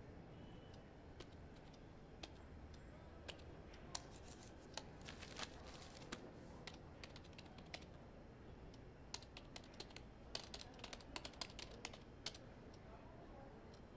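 Typing on a computer keyboard: irregular key clicks, some in quick runs. They start about four seconds in and stop shortly before the end.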